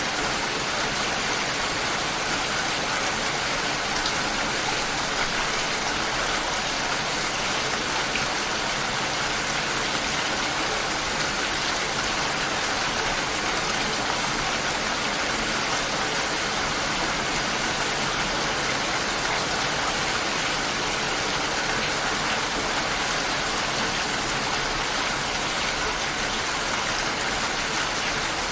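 Steady, even rain falling, with no thunder and no music.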